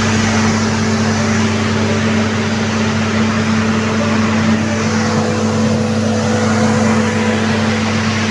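Loud, steady machine drone with a constant low hum, from engines running on an airport apron.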